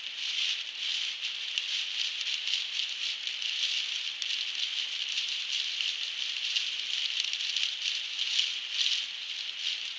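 Heavy rain pelting the car's windshield and roof, heard from inside the cabin as a dense, steady patter.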